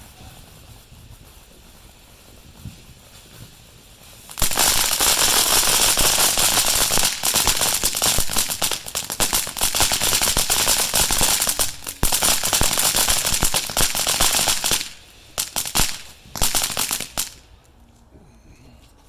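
A string of firecrackers going off about four seconds in: a loud, dense, rapid crackle of pops for about ten seconds, then a few short final bursts before it stops.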